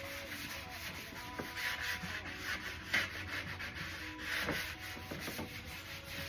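Hand sanding block rubbed over a primed surface in light strokes, a dry scratchy rasp that swells with each stroke about every second and a half. It smooths the roughness the primer leaves before finishing.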